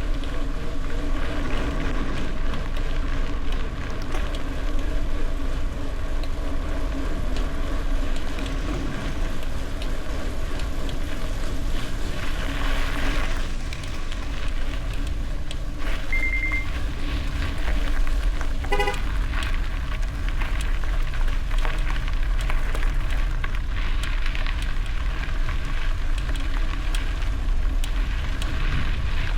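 Steady riding noise from a gravel bike: wind rumbling on the camera microphone over tyres rolling on the road surface. A short high beep sounds about two-thirds of the way through, followed by a quick chirp a couple of seconds later.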